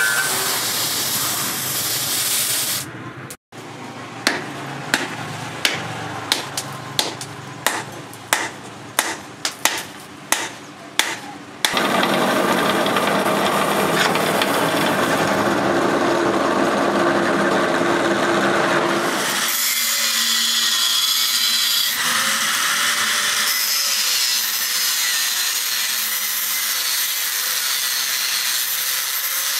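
Hot steel hissing in a quench for a few seconds. After a cut come about a dozen evenly spaced knocks, then a drill press boring into a steel blade. Near the end a handheld angle grinder with a cut-off disc is cutting steel, its motor whine wavering.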